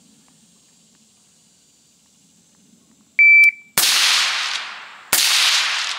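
Shot timer's start beep, one short high tone, then two rifle shots from an AR-style rifle, the first a moment after the beep and the second a little over a second later. Each report rings out and fades over about a second.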